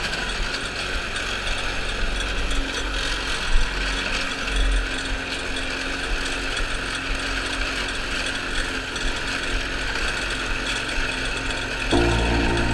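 Walk-behind gasoline lawn mower engine running steadily while mowing grass, a continuous mechanical whirr. Near the end it becomes louder and deeper.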